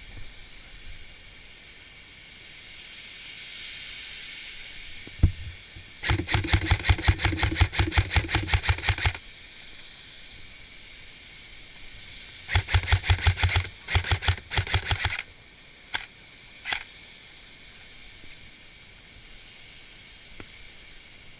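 Airsoft rifle firing two full-auto bursts, each lasting about three seconds, with a few single shots before and after.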